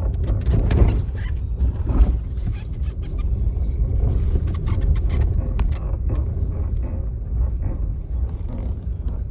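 Maruti Suzuki Dzire cabin while driving: steady road and engine rumble with knocks as the brakes are pressed, the loudest about one and two seconds in. The noise comes with braking and is later traced to a front brake caliper that shifts when the brake is applied.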